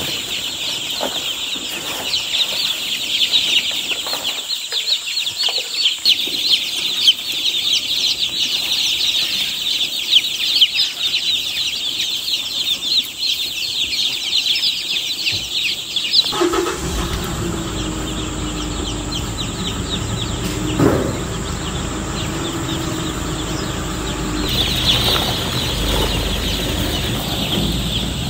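A brood of newly hatched chicks peeping constantly, a dense chorus of short high cheeps. About two-thirds of the way through the peeping thins out and a low steady hum and rumble come in, then the dense peeping returns near the end.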